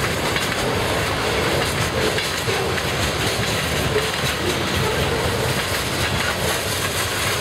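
Freight cars of a mixed freight train rolling past, a steady sound of steel wheels running on the rails.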